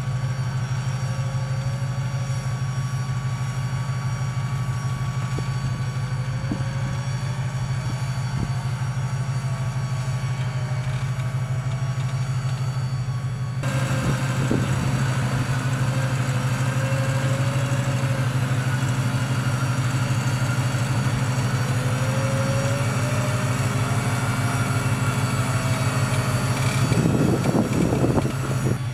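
Off-road vehicle's engine running steadily, a deep drone of fast even pulses, with a faint higher tone wavering up and down above it. It gets louder about halfway through and swells briefly near the end.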